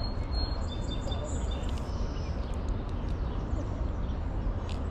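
Steady low outdoor rumble with a few short bird chirps near the start, and scattered faint clicks from handling a hooked largemouth bass.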